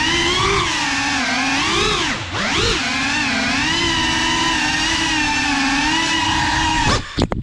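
GEPRC CineLog35 cinewhoop FPV drone's motors and ducted propellers whining, the pitch rising and falling with the throttle. Near the end the pitch dives steeply and the sound cuts off.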